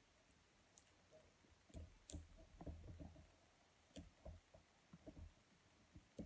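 Faint scattered clicks and rustling of hands working inside a bowl of glued rolled-paper rings, pulling out burst balloon rubber that is stuck to the hot-glue joints.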